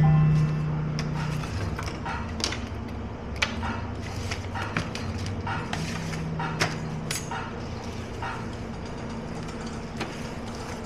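Short clicks and knocks of small objects (scissors, marker pens, a tape roll) being picked up and set down on a table, over a steady low hum. Music fades out in the first half second.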